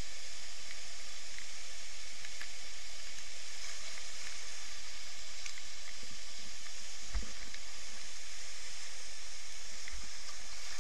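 Steady rush of white water pouring over a river weir and churning below it, a hissing roar with no letup. Two dull low thumps come about seven and ten seconds in.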